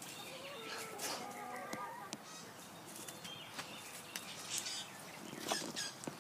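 Scattered scuffles and short rustles, as of a rooster's wings flapping, with faint chicken calls in between.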